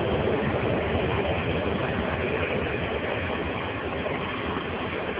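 Passenger train coaches rolling past close by: a steady rumble of wheels on the rails, easing a little in loudness.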